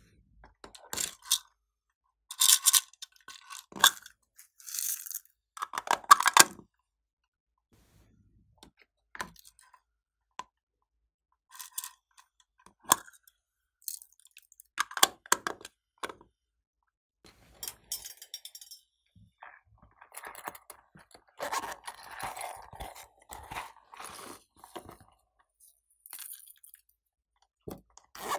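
Small plastic cases clicking and tapping as they are opened and handled, with short rattles of sequins, glitter and tiny beads being shaken out onto slime in a plastic tray. There is a longer stretch of rattling about three-quarters of the way through.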